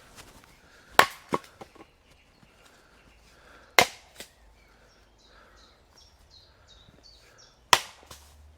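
Axe chopping into a log: three heavy strokes a few seconds apart, the first followed by a few lighter knocks and the second by one.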